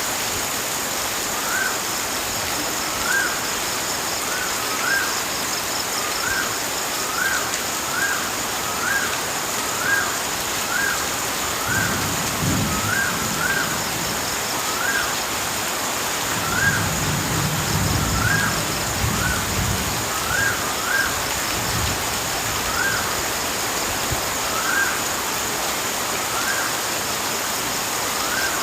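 Nature ambience: a steady wash of rushing water under a high, steady insect trill, with a short rising-and-falling call repeated about once a second. A low rumble comes in briefly about twelve seconds in and again for a few seconds a little later.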